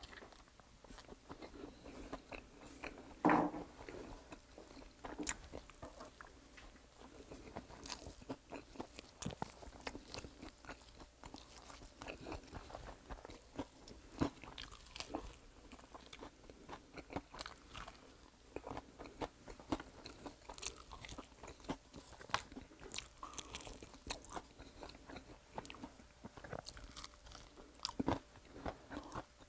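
Chewing and crunching of maple butter garlic fried chicken: a dense run of small crackles and wet mouth clicks as the coated chicken is bitten and chewed, with one louder bite about three seconds in.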